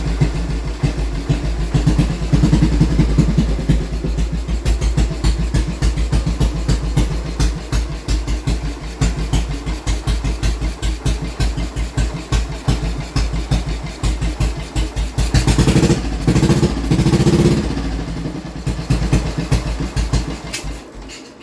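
1947 Norton ES2's single-cylinder four-stroke engine idling with distinct, evenly spaced firing beats. It is revved briefly twice after about fifteen seconds, then settles and is shut off just before the end.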